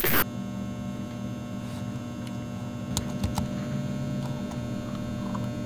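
Steady electrical hum, with a short burst of noise at the start and a few faint clicks around the middle.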